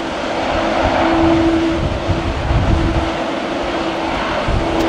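Jet engines of a Boeing 787 running at taxi power on a wet taxiway: a steady hiss with a steady hum that comes and goes.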